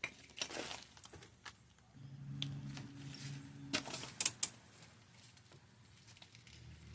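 Brake pads and other small metal brake parts being handled and fitted into a caliper bracket: scattered sharp metallic clicks and clinks, with a brief low hum a couple of seconds in.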